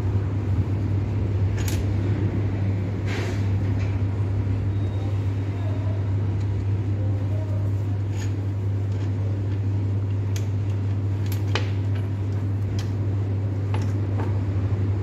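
A steady low hum runs throughout, with a few light clicks and clinks as a cotton buffing wheel and its metal flange are handled on a metal bench.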